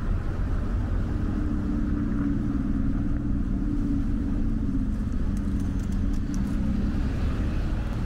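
A motor vehicle's engine running, a steady low hum over a constant rumble.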